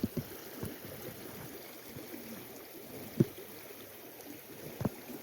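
River water flowing steadily, with a few short knocks over it, the sharpest about three seconds in and another near the end.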